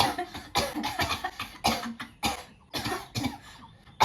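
Deliberate coughing for a coughing challenge: a string of short, loud coughs in quick succession with brief gaps, pausing briefly near the end.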